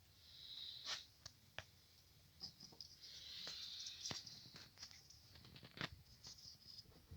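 Faint handling noises from small tools and parts: scattered light clicks and knocks, with two brief scraping sounds, one near the start and one about three seconds in.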